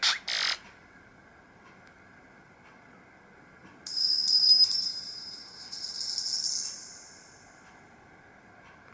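Tones from a Nokia 7310's speaker: the end of one tone cuts off in the first half-second. About four seconds in, a single high, bell-like ringing tone starts abruptly and fades away over about four seconds.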